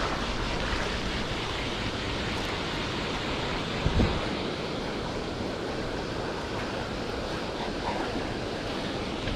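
Steady rushing noise, like wind buffeting the microphone or water surging, with one brief low thump about four seconds in.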